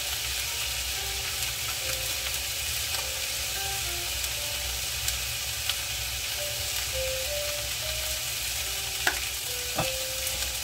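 Cauliflower and vegetables sizzling steadily in a frying pan, with two sharp clicks near the end.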